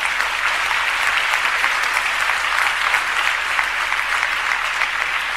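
Large seated audience applauding, a dense, steady patter of many hands clapping that eases slightly near the end.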